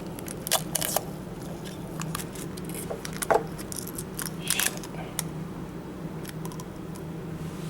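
Plastic clicks and rattles of a microwave egg poacher and its packaging being handled one-handed, in scattered bursts over a steady low hum.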